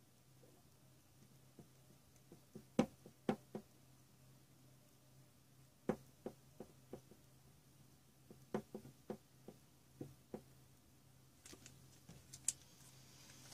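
Scattered light clicks and taps from a thermal paste syringe being worked on a graphics card's GPU chip, over a faint steady low hum, with a soft rustle near the end.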